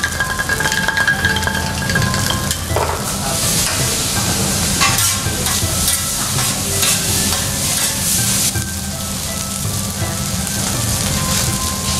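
Garlic fried rice sizzling on a hot steel teppanyaki griddle while spatulas stir and scrape it across the plate.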